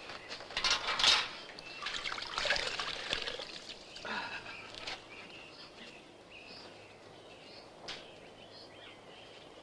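Water splashing and trickling as a cloth is worked in a metal bucket to wash a motorcycle wheel, loudest in the first three seconds or so. Faint bird chirps come through in the quieter second half.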